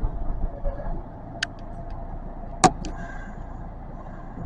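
Kintetsu electric train running on the Kyoto Municipal Subway Karasuma Line, heard from inside the front car: a steady rumble of running noise with a faint hum. A few sharp clicks sound over it, the loudest about two and a half seconds in.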